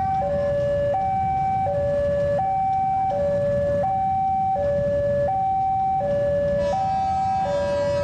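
Indonesian railway level-crossing alarm sounding its steady two-tone high-low warning, each tone held under a second, while the barrier is down for an oncoming train. A low rumble runs underneath, and a buzzier, higher sound joins near the end.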